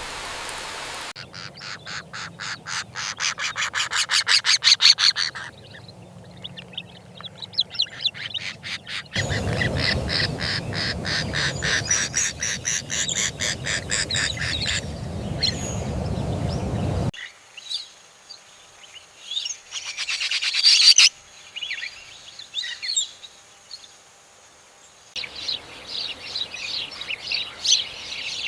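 Bird calls in several abruptly cut stretches: fast, even trains of chirps, one stretch over a loud hiss of noise, a quieter stretch of scattered calls, and dense chirping again near the end.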